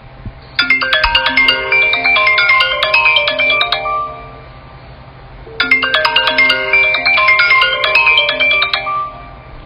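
Custom iPhone ringtone playing: a busy electronic melody of quick notes, heard twice with a pause of about a second and a half between the two rounds, cutting off at the end.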